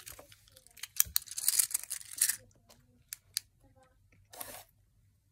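Plastic fidget pad being fiddled with: a few sharp clicks of its buttons and switch at irregular intervals, with brief rasping stretches from its moving parts, the longest about a second in.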